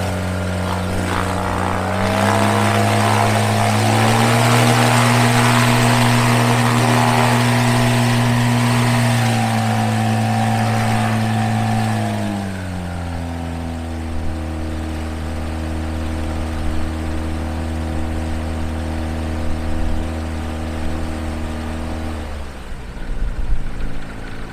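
Viking aircraft engine running and turning the propeller of a light sport aircraft. It speeds up about two seconds in, holds the higher revs, then drops back to a lower speed about twelve seconds in. Near the end its steady note fades.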